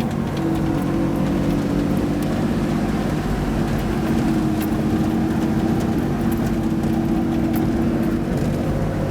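1988 Toyota 4x4's engine running steadily as the truck drives up a dirt road, with only small rises and falls in pitch.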